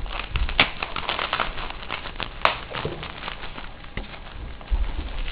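Plastic bubble wrap crinkling and rustling as a package is unwrapped by hand: a dense run of irregular crackles, with one sharp click about two and a half seconds in.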